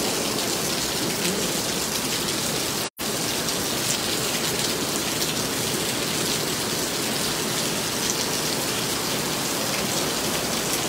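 Heavy rain falling steadily, a dense even hiss, broken by a very brief dropout about three seconds in.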